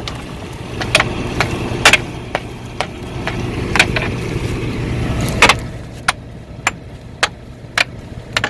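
A steady low engine hum with sharp clicks over it. The clicks come irregularly at first, then settle into a regular tick about twice a second after about six seconds.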